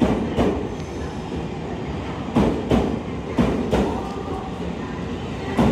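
E231-series train cars rolling slowly past, their wheels clicking over a rail joint in double clacks, each pair a third of a second or so apart, about three pairs over a steady running rumble.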